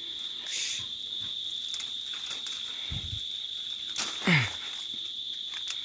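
Insects chirring steadily at a high pitch, with light rustling of leaves and twigs as a lime is picked from the tree. A brief low sound falling in pitch comes about four seconds in.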